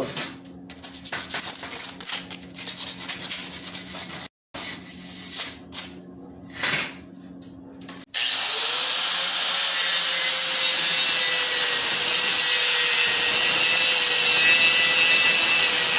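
Irregular scraping and rubbing strokes on the muffler pipe. About halfway through, a stick-welding arc from a 6011 rod strikes and runs as a loud, steady hiss while the flange is tack welded to the muffler.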